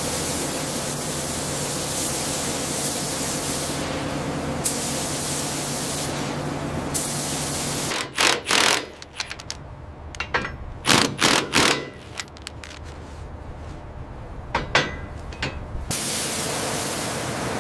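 Paint spray gun hissing steadily over a low hum. About halfway through it gives way to a run of short, irregular bursts from an impact wrench driving a bolt, and the steady spray hiss returns near the end.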